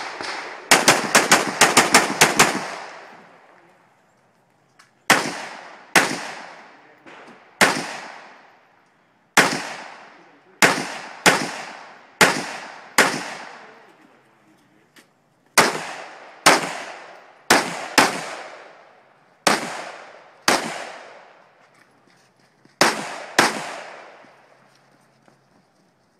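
AR-15-style rifle fired in a USPSA stage: a fast string of about nine shots, then single shots and quick pairs spaced roughly a second apart, each crack trailing off in a short echo.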